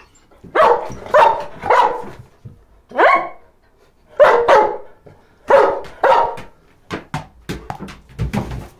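Black schnauzer barking: a run of about eight loud single barks, one rising in pitch, followed near the end by a few shorter, quieter knocks and sounds.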